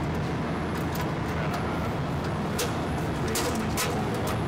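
Steady low drone of running air blower machinery, with several short knocks and scrapes as a round inlet filter element is handled in its housing.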